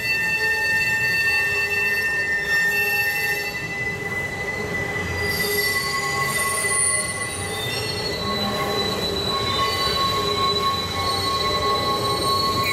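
Steel train wheels squealing against the rails on a sharp curve: several high, steady tones overlapping, with some fading and new ones coming in about halfway through, over a low rumble. The train is hauled by a Shay geared locomotive climbing a switchback grade.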